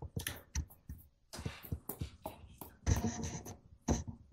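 Scattered clicks, taps and paper rustling picked up by the courtroom microphones, with a denser run of handling noise about three seconds in.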